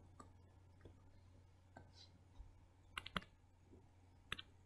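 Faint, scattered clicks of a stylus tapping on a tablet screen during handwriting, about half a dozen taps with a close pair about three seconds in, over a low steady hum.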